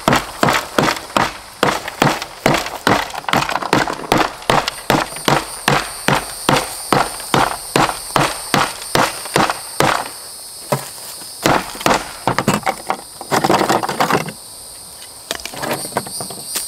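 Hammer blows breaking cured mortar off the underside of a shower base, about three sharp strikes a second for some ten seconds. Then a few slower blows and a longer crunching burst about fourteen seconds in.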